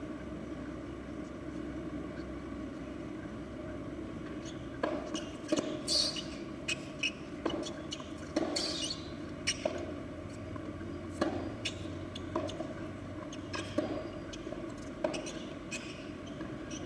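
Tennis ball being struck by rackets and bouncing on the court in a rally: a string of sharp pops starting about five seconds in, roughly one every second, over a steady background hum.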